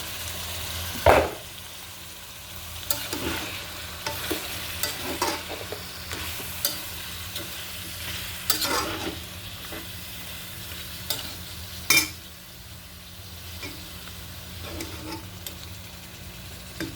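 Flat beans and potatoes sizzling in hot oil in a pan while a spatula stirs them, scraping and knocking against the pan now and then. The loudest knocks come about a second in and about twelve seconds in.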